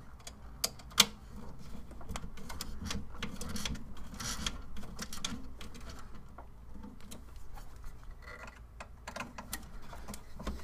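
Ratchet with a Torx bit clicking in short irregular runs as small Torx screws are tightened by hand, with light metallic knocks of the tool against the printer's frame.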